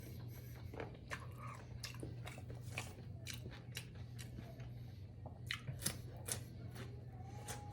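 Close-miked mouth sounds of someone eating: irregular wet chewing clicks and smacks, several a second, over a steady low hum.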